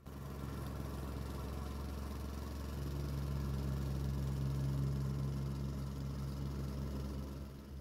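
Gas-engine plate compactor running steadily as it vibrates over and compacts the paver sand bed, a steady engine hum that grows a little louder about three seconds in.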